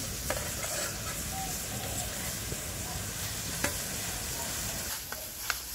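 Water boiling in an aluminium pan over a wood fire, butterfly pea flowers steeping in it: a steady bubbling hiss, with a few sharp crackles from the burning wood.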